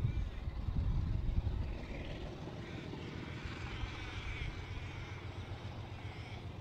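Alco 442-class diesel-electric locomotive engine working under power, a low rumble that is strongest in the first second or so and then settles steadier, heard from a distance; the heavy black exhaust shows the engine is loading up as it moves off.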